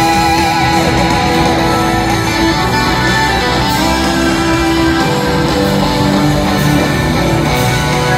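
Rock band and orchestra playing live: electric guitar over drums and held orchestral chords, loud and steady.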